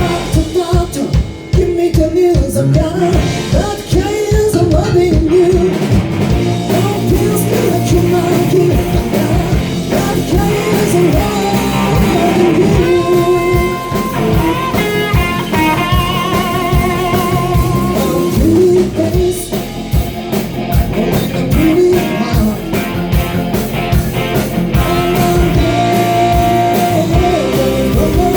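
Live rock band playing: electric guitar, bass and drum kit with a steady beat, and a lead vocal over them.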